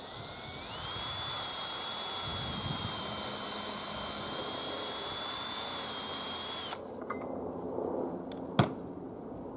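Cordless drill boring straight through a wooden disc: the motor whine rises as it spins up in the first second, holds steady for about six seconds, then stops abruptly. A single sharp knock comes about two seconds after it stops.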